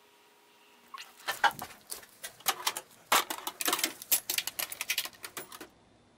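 Metal tools clinking and rattling as a gloved hand rummages through an open Craftsman tool chest drawer. It is an irregular run of sharp clicks and clatters that starts about a second in and stops suddenly near the end.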